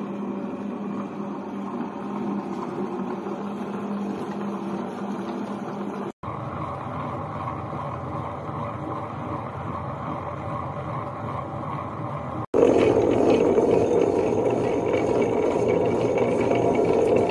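Table-top wet grinder running: its electric motor turning the steel drum against the stone rollers with a steady hum, in the middle stretch grinding batter. The sound comes in three separate takes that cut about six and twelve seconds in, the last one louder.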